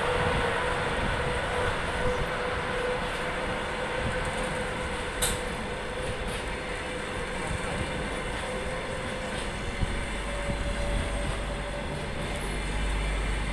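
Passenger coaches of a departing train rolling slowly past, the wheels running on the rails in a steady rumble with a thin continuous whine above it. There is one sharp click about five seconds in.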